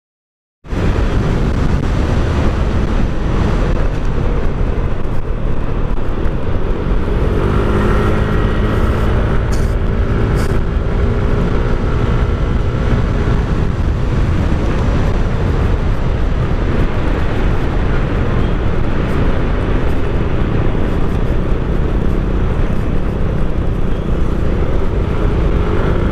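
Motor scooter under way: steady heavy wind rush on the microphone, with the engine's hum faintly rising and falling underneath. The sound cuts in abruptly just under a second in.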